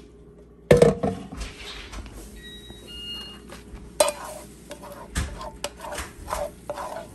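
Cookware clattering: a loud metal clang less than a second in, then a utensil knocking and scraping in a frying pan as sliced green peppers and onions are stirred.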